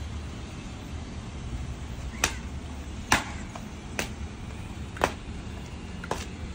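Thin porotta dough being flung out and slapped onto a stone counter to stretch it: five sharp slaps about a second apart, over a steady low hum.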